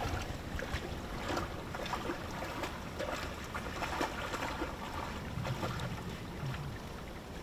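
Blood-tracking dog wading and splashing across a shallow creek, with short irregular splashes throughout, and wind rumbling on the microphone.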